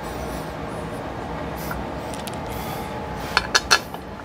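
Steel bolts clinking sharply three times in quick succession, about three and a half seconds in, as they are handled at the aluminium pan of a Powerglide transmission, over a steady background hum.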